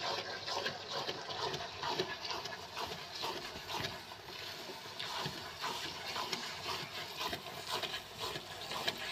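Silicone spatula stirring and scraping thick grated-carrot halwa around a non-stick pot, an irregular run of soft scrapes.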